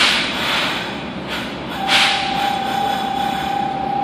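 Inside a Kobe City Subway 3000 series train: sharp air hisses from the pneumatics near the start and again about two seconds in. A steady, even whine from the Hitachi GTO traction inverter then starts and holds one pitch as the train begins to pull away.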